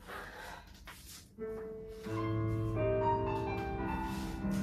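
Piano music for a ballet barre exercise starting up about a second and a half in, with held notes and chords growing louder. Before it there are only faint rustles.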